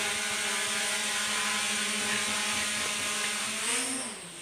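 Small toy quadcopter drone hovering, its four motors and propellers giving a steady, smooth whir with a high whine. Near the end the pitch bends and the sound dips briefly before it steadies again.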